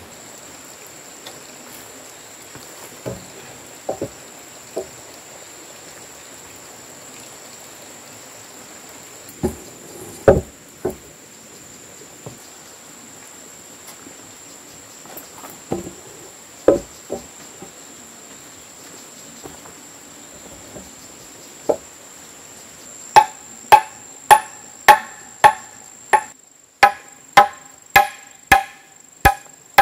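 Machete chopping into a sawn timber beam: sharp ringing strikes about twice a second in the last seven seconds, after a few scattered wooden knocks earlier. A steady high insect drone runs underneath.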